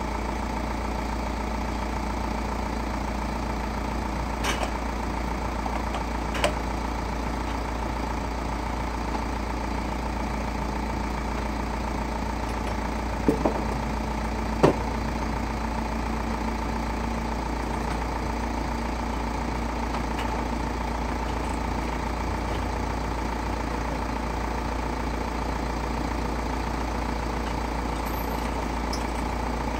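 Steady mechanical hum as a van's side-door wheelchair platform lift unfolds and lowers, with several sharp clunks from the lift mechanism in the first half.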